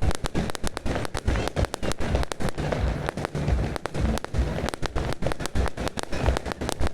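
Fireworks going off in quick, irregular succession: many sharp cracks and pops several times a second over a steady low rumble of bangs.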